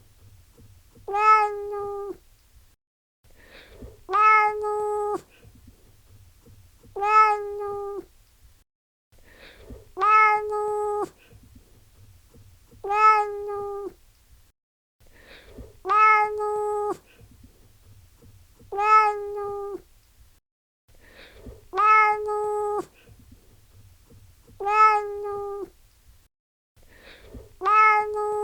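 Domestic cat meowing over and over, about ten alike meows, one roughly every three seconds, each a short steady-pitched call under a second long.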